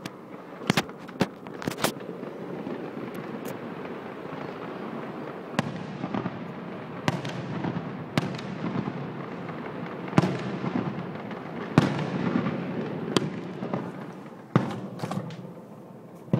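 Aerial fireworks display: shells bursting in sharp bangs, about a dozen spread every second or two, with a continuous noisy din between them.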